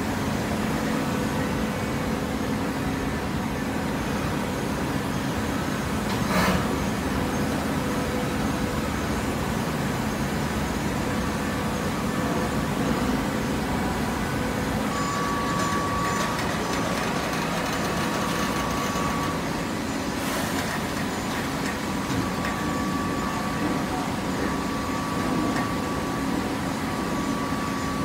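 Steady machinery hum of an automatic horizontal baler running, with a thin high whine that comes and goes in the second half and a short knock about six seconds in and another about twenty seconds in.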